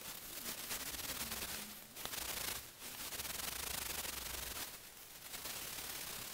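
Hand scrubbing of a cast iron wood lathe bed, rubbing rust and staining off the bed ways with oil. Long scratchy rubbing strokes with short breaks about two seconds in, again a little later, and near five seconds.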